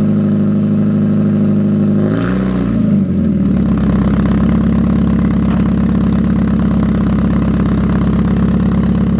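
Mazda Eunos Roadster's four-cylinder engine idling through a 5ZIGEN Super Lap aftermarket muffler with its silencer insert fitted. About two seconds in, the throttle is blipped once: a short rise and fall in pitch, then it settles back to a steady idle.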